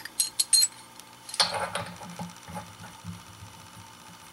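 Small brass plumbing fittings clinking together a few times, then a louder scraping, rubbing sound about a second and a half in as the brass union is handled.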